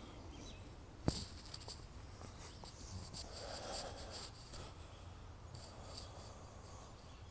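Faint rustling and scraping from an earphone-cord microphone rubbing against a shirt as the phone is moved, with a sharp click about a second in.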